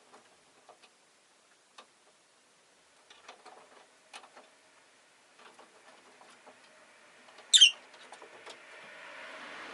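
Scattered small clicks and taps, then near the end a single short, sharp chirp from a rosy-faced lovebird, the loudest sound. A rushing noise swells over the last second or so.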